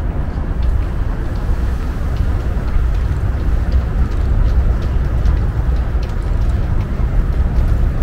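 Steady low rumble of distant city traffic, with faint light ticks and crackles scattered through it.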